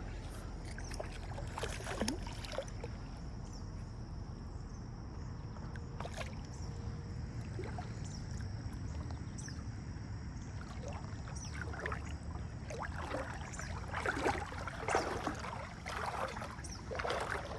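Water noise by a river with a steady low rumble, and a run of short splashes near the end as a hooked fish is brought in at the bank.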